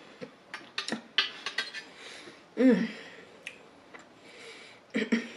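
Eating sounds at a table: a fork and dishes clicking a few times, then a short hummed 'mm' about two and a half seconds in, the loudest sound.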